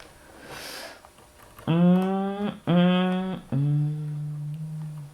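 A man humming three puzzled 'hmm's, the first two short and the third longer and a little lower, after a short breath about half a second in.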